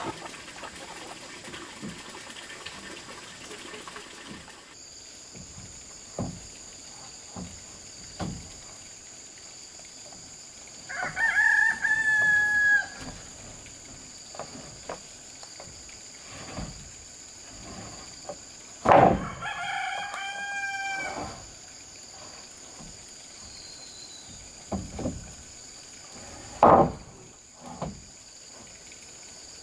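Rooster crowing twice, each crow a held call of about two seconds, with sharp knocks now and then and a steady high-pitched tone in the background.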